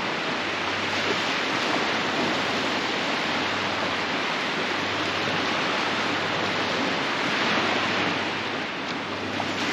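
Steady rushing hiss of surf breaking on the shore, swelling slightly near the end.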